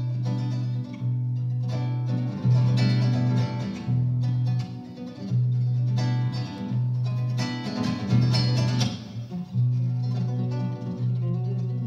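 Acoustic guitar playing, plucked notes over held low bass notes, with two louder passages of rapid chords about two and a half and seven and a half seconds in.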